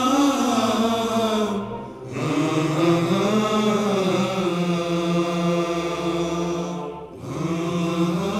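Vocal-only background music: a voice chanting long, held melodic notes without instruments, in long phrases with short breaks about two and seven seconds in.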